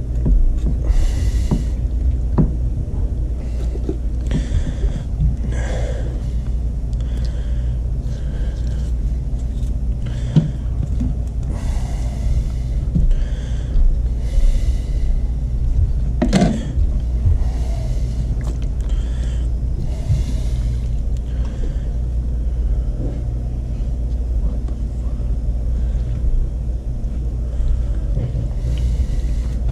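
A steady low hum, with intermittent short scraping and slicing sounds from a fillet knife working along a burbot's bones to free the belly meat, and two light knocks.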